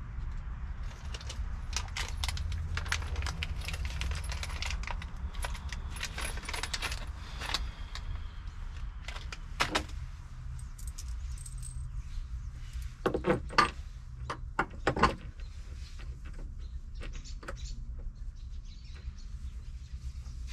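Small metal hardware, bolts and washers, clinking and clicking as it is handled and set on the steel platform. Scattered light clicks give way to a few louder clicks about two-thirds of the way in, over a steady low rumble.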